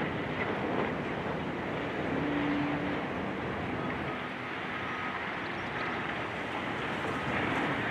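Steady noise of heavy demolition machinery, a diesel excavator running, with no distinct impacts. A brief low hum comes in about two seconds in.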